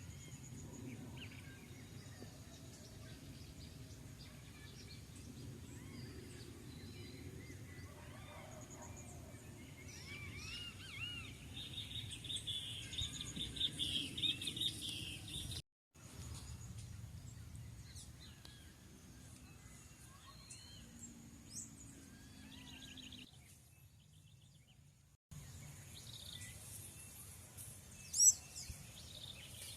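Several wild birds chirping and singing over a steady low outdoor rumble, with a busy run of calls about twelve to fifteen seconds in and one loud sharp call near the end. The sound cuts out briefly at about sixteen seconds.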